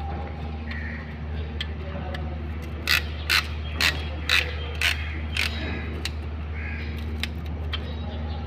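Sharp metallic clicks from hand tools working a piston and its rings, six in quick succession about two a second, with a few lighter ticks around them, over a steady low hum.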